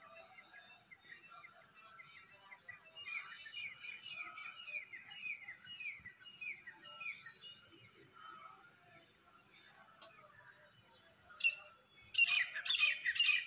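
Songbirds chirping: a run of short, falling chirps, about two a second, a few seconds in. Near the end comes a sudden, much louder, dense chatter of many birds.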